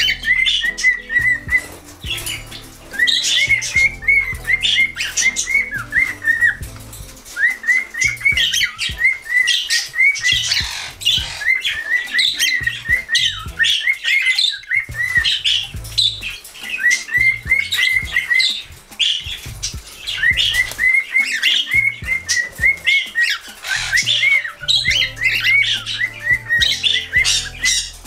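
Pet cockatiels and other small parrots chattering and squawking, with runs of quick repeated high chirps every few seconds.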